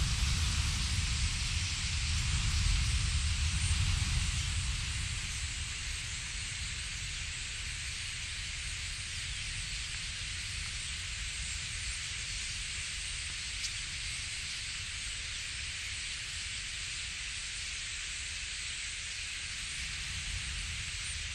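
Steady rushing hiss of a huge flock of common starlings wheeling low overhead, with wind rumbling on the microphone for the first few seconds before it eases.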